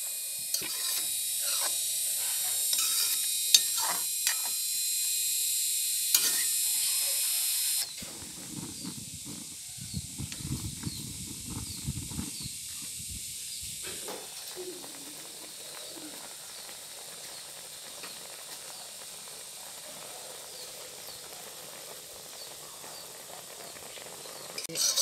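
Beef tripe with chillies and greens sizzling and hissing in an aluminium wok, with a few clicks of the ladle against the pan. About eight seconds in the hiss drops to a quieter, steady sizzle with faint pops, with some low rumbling for a few seconds.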